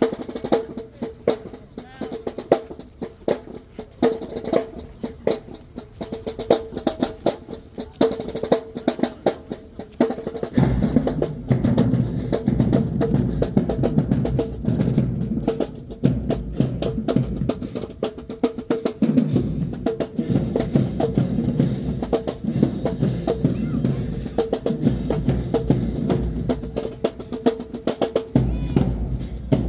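Marching band drumline playing a cadence: rapid snare drum strokes and rolls at first, with bass drums coming in heavily about ten seconds in and keeping up a pounding beat under the snares.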